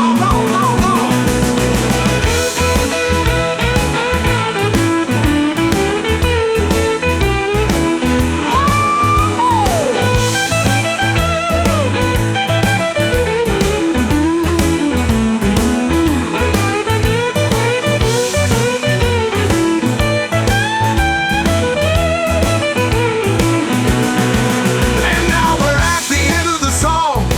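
Instrumental break in a blues-rock song: a lead guitar plays bending, sliding melodic lines over a steady bass and drum beat.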